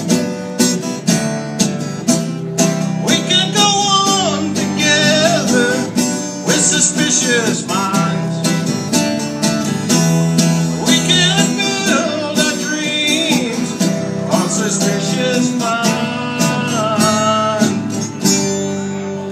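Acoustic guitar strummed in a steady rhythm, with wordless singing gliding and wavering over it. Near the end the strumming stops and the last chord rings out and fades, closing the song.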